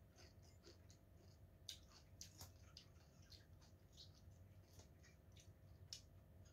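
Faint, scattered small clicks of someone eating with a metal fork from a bowl, in near silence.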